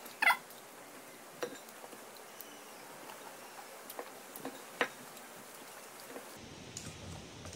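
A short high-pitched squeak about a quarter second in, then a few scattered sharp clicks and taps as raw green mango is taken from a steel bowl and bitten.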